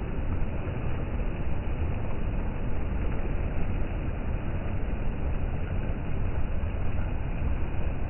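Steady wash of the sea with wind buffeting the microphone: a continuous low rumble with no separate events.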